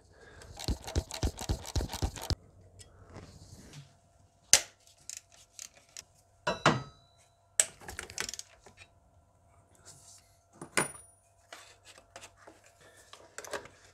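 Socket ratchet clicking rapidly for about two seconds as an E10 bolt on the EGR tube flange is backed out, then scattered metal clinks and taps as the loosened bolts and metal EGR tube are handled, a few clinks ringing briefly.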